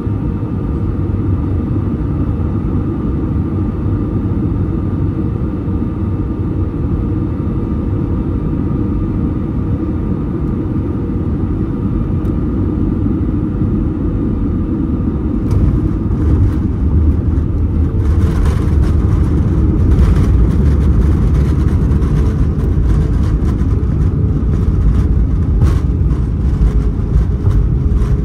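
Airbus A320 cabin noise over the wing during landing: steady engine hum with a whine on short final, then about fifteen seconds in the touchdown brings a louder rumble from the runway. A couple of seconds later reverse thrust comes in, a heavier, louder rumble that runs on as the jet slows.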